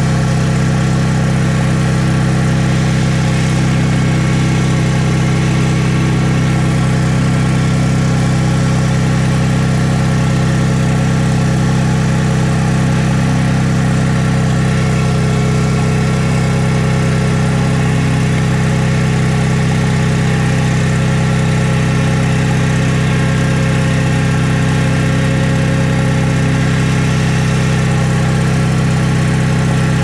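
Case 1816C skid steer's engine running steadily with an even, unchanging hum, heard close up from inside the drive chain compartment.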